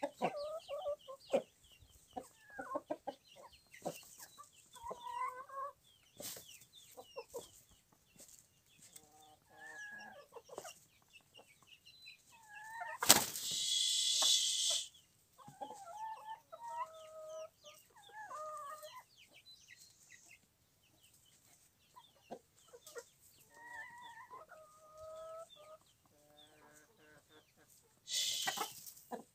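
Chickens clucking in short scattered calls, with a loud harsh burst lasting about two seconds around 13 seconds in and another near the end.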